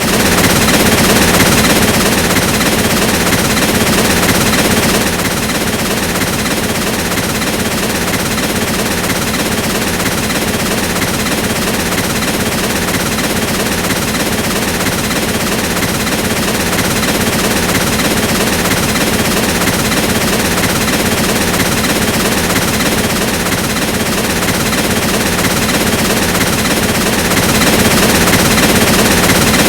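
Train running at speed: a loud, steady, rapid rattling clatter of wheels and cars on the track.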